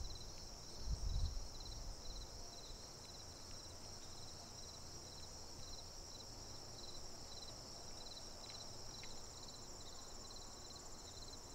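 Chorus of field insects, a steady high-pitched trill with a short pulsing chirp repeating a few times a second. Beneath it is a faint low rumble, with a brief louder bump about a second in.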